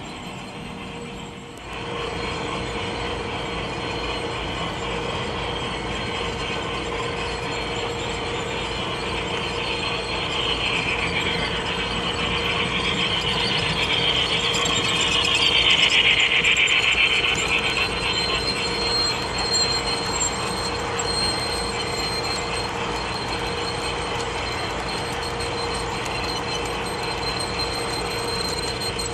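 HO-scale model train (a Union Pacific Challenger 3985 steam locomotive model pulling passenger cars) running along the track: a steady motor hum with the rattle of wheels on rail. It comes in about two seconds in, grows louder as the train passes close around the middle, then eases off.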